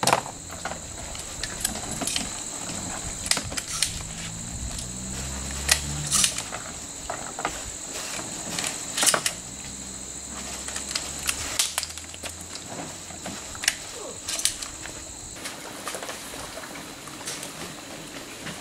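A steady high-pitched insect drone that stops about three quarters of the way through, under scattered clicks and knocks of equipment being handled, with a low hum rising twice in the background.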